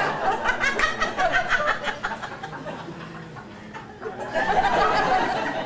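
Audience laughing: loud for the first two seconds, tailing off, then swelling again for a second or so near the end.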